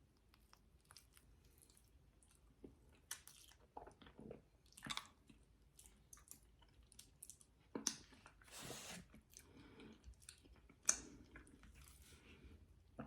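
Faint, close-miked chewing and wet mouth smacks of someone eating egusi soup with fufu (pounded yam): scattered soft clicks and squishes, with a longer soft rush of noise about eight seconds in.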